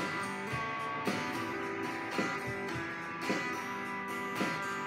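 Grungy electric guitar strumming chords over a steady drum-machine beat, with a strong hit about once a second.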